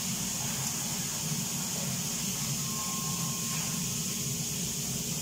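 Steady hiss and hum of a kitchen range hood fan running over the stove, with chicken sizzling in a pan beneath it.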